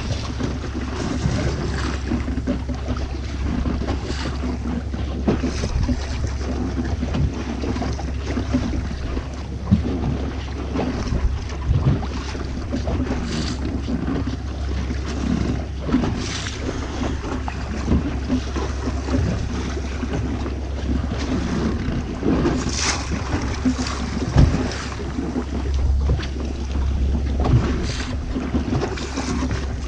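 Wind buffeting the microphone of an action camera aboard a small boat at sea, with water slapping against the hull over a steady low rumble, and occasional sharp knocks.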